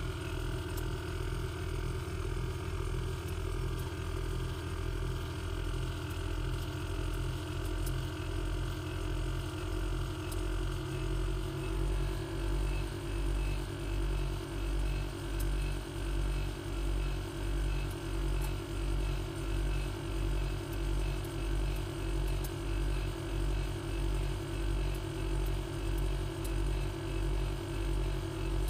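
Background music: sustained low chords over a bass pulse about once a second, with a change of chord about twelve seconds in.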